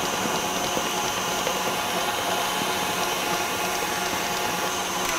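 Tilt-head stand mixer running steadily at a low speed, its wire whisk beating lumps of butter into Swiss meringue to make buttercream.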